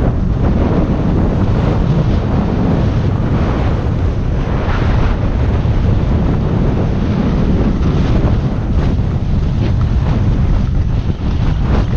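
Wind rushing over the camera's microphone as a skier runs fast down a groomed slope, with the hiss and scrape of the skis on packed snow rising in short spells.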